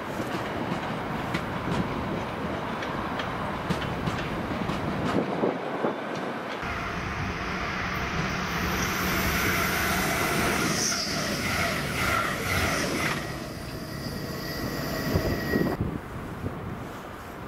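Freight train of bogie hopper wagons rolling past, wheels clicking and clattering over the rail joints. After a cut, a train approaching with a high, steady whine and squeal over the rumble, which stops abruptly near the end.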